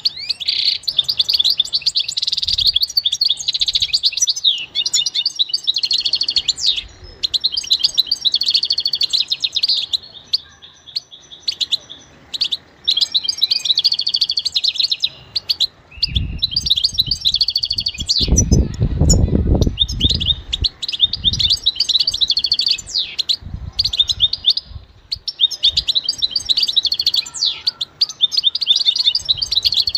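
European goldfinch singing: bursts of fast, liquid twittering phrases a couple of seconds long, broken by short pauses. Low thuds sound about halfway through the song.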